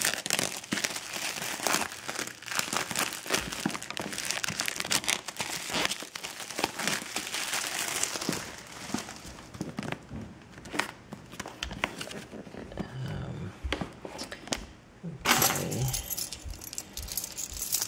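Plastic shrink-wrap crinkling and tearing as it is peeled off a cardboard box, with light knocks of the box being handled. The crinkling is dense at first and thins out to scattered crackles about halfway through.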